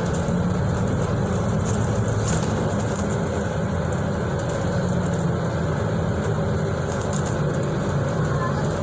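Interior sound of a moving Stagecoach bus: a steady low engine drone with road and tyre noise and a few faint rattles in the cabin.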